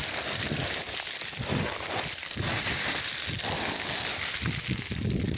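Hiking boots crunching and sliding down loose stone scree, with a step about twice a second over a steady gravelly hiss.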